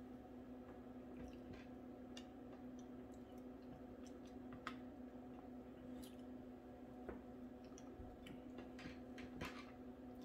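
Faint sounds of a person eating: scattered small clicks and soft mouth noises over a steady low hum.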